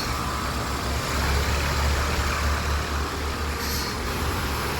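Outdoor air-conditioning unit running just after kicking on: a steady low hum with an even rushing noise over it.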